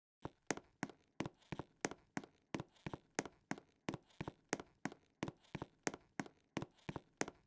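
A rapid, even series of sharp cracks repeating about three times a second, with a few close pairs.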